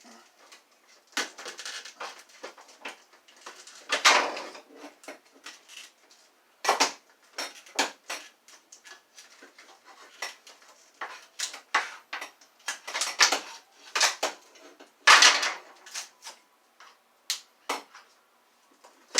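Hard plastic parts of a vacuum cleaner wand being pried apart and handled: irregular clicks, knocks and short scraping rattles, with a few louder knocks among them.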